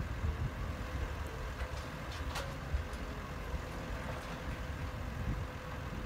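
Diesel engines of a farm tractor and a loader running, a low steady rumble with a few faint knocks.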